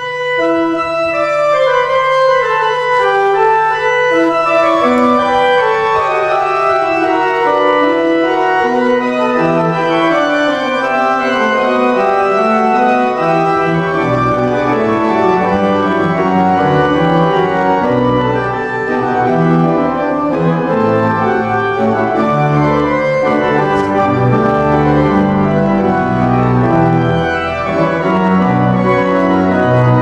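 Organ playing a dense stream of changing notes and chords over a held low note. About halfway through, the held note gives way to a moving bass line.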